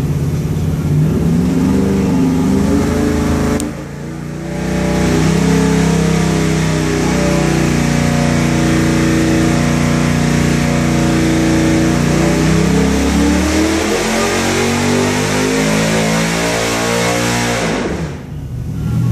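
LS3 6.2-litre V8 race engine, fed by a big carburettor on a tunnel ram intake, making a full-throttle dyno pull. After a brief dip in level about four seconds in, it climbs steadily from around 2,100 to over 6,000 rpm, then drops off sharply near the end as the pull finishes.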